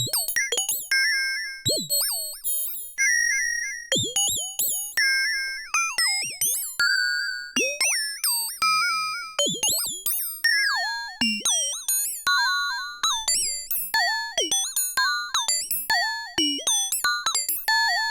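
Eurorack modular synthesizer patch playing a stream of short, bird-like chirping notes, a few per second at changing pitches, each starting sharply, swooping in pitch and quickly dying away. The tones are frequency-modulated, with an LFO moving the FM.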